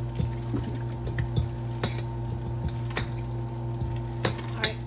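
Silicone spatulas scraping and knocking against a stainless steel mixing bowl while tossing raw chicken wings in flour and cornstarch, with irregular clicks and soft wet squishes of the coated wings. A steady low hum runs underneath.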